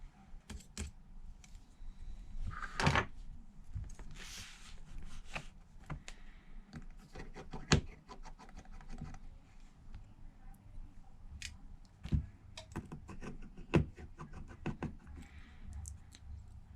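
Small sharp clicks and taps of a precision Phillips screwdriver and tiny screws being handled and set down during an iPad teardown, with a brief scrape about four seconds in.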